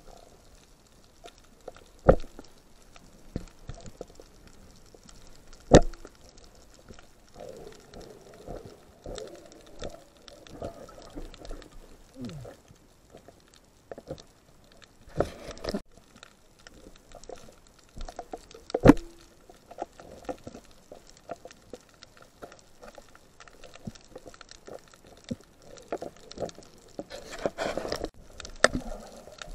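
Underwater sound heard through a camera housing: muffled water movement with scattered small clicks and three sharp knocks, about two seconds in, about six seconds in and near the nineteenth second.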